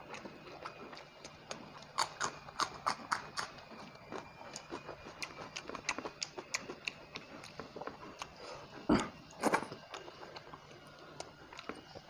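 Close-miked eating sounds: fingers working rice on a plate and chewing, heard as a run of short sharp clicks, with two louder clicks about nine seconds in.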